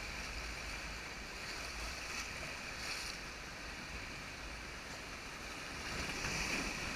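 Steady rush of river water around a whitewater raft, growing a little louder near the end.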